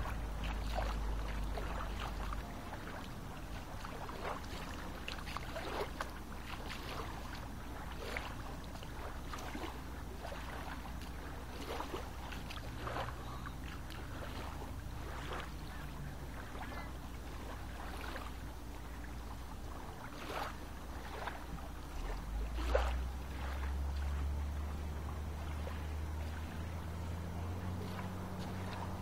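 Small lake waves lapping at the shoreline, a soft splash every second or two, over a low steady rumble.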